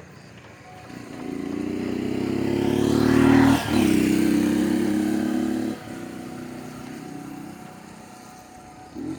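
A motor vehicle driving past: engine hum and road noise build to a peak about three and a half seconds in, then drop away sharply a couple of seconds later and fade.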